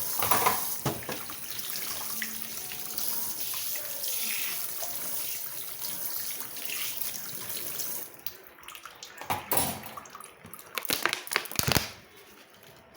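Kitchen tap running into a sink, shut off about eight seconds in, followed by a few sharp knocks and clatters.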